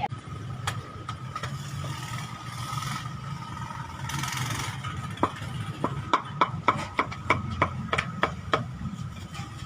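A run of sharp knocks, about three to four a second, from a cleaver chopping chicken on a wooden board, starting about halfway through. Under it is a steady low hum, with two short hissing bursts earlier on.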